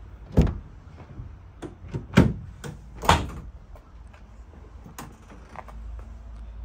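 Doors and latches on an Opel Combo panel van being opened and shut: a series of clunks and knocks, the loudest about three seconds in. A low steady hum starts near the end.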